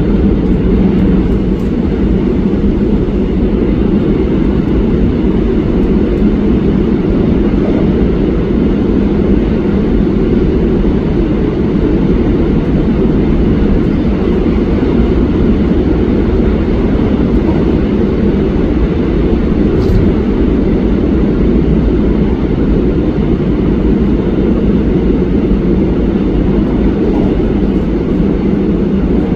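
A 2003-built Korail electric multiple unit running through a tunnel, heard from inside the carriage: a loud, steady rumble of wheels and running gear with a low hum throughout.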